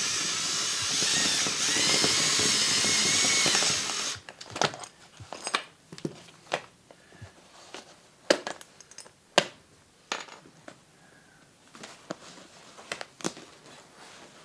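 Sailrite sewing machine fitted with a heavy Monster Wheel flywheel, running under its electric motor for about four seconds, with a whine that rises and dips, then stopping abruptly. Scattered light clicks and knocks follow.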